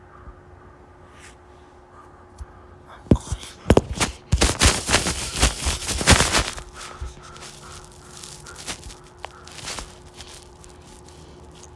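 Several sharp knocks about three seconds in, then a few seconds of loud rustling and scraping that dies down about seven seconds in, followed by scattered small knocks, over a faint steady hum.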